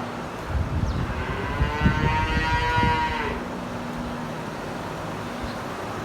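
A Hanwoo calf bawls once, a long call of about two seconds held at a steady pitch. It is a weaned calf crying for its mother. A steady low hum runs underneath.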